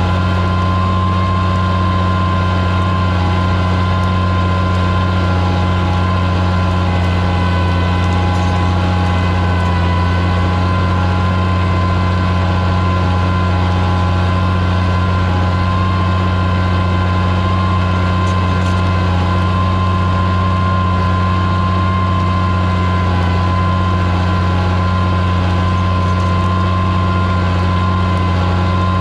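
Oliver 77 tractor's six-cylinder engine running steadily under load while pulling a plow, a constant low drone with no change in speed.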